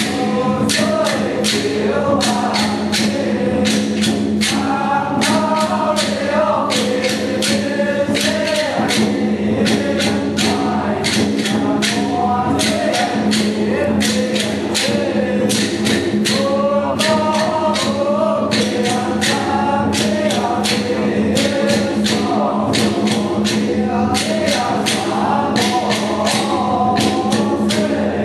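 Taiwanese temple ritual music accompanying a spirit medium's trance dance: a wavering melody over steady low tones and dense percussion strikes, several a second, without a break.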